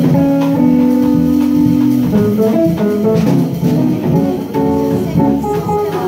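Jazz trio playing live: a hollow-body electric guitar leads over bass and drum kit, holding notes before moving into a run of quicker single notes about two seconds in.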